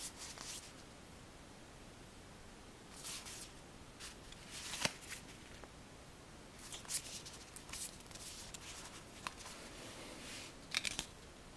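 Paper booklets and leaflets rustling as they are shuffled, flipped and set down, in several short bursts with a few sharp clicks.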